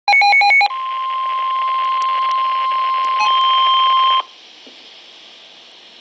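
NOAA Weather Radio warning alert tone playing through a weather alert radio's speaker: a brief fast warble of alternating high and low beeps, then a single steady tone of about 1050 Hz. A second, higher steady tone joins it near the end, and both cut off suddenly about four seconds in, leaving faint hiss. This alert tone signals that a warning is about to be read.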